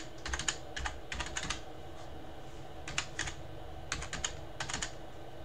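Computer keyboard typing in short runs of quick keystrokes, with a pause of over a second midway.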